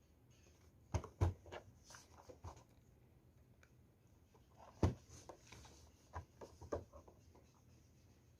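Handling of a Funko Pop figure's packaging: a few sharp taps and clicks, the loudest about a second in and again near five seconds, with light rubbing and scraping in between.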